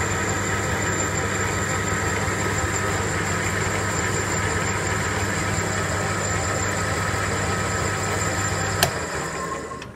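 Metal lathe running with a steady motor hum and high whine while the tool cuts a steel part. Near the end a sharp click, and the hum stops as the lathe is switched off and spins down.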